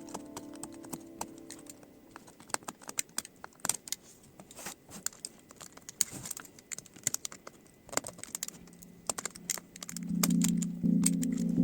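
Irregular small clicks and taps of plastic and metal laptop parts being handled and worked with tools. Background music fades out early and comes back louder near the end.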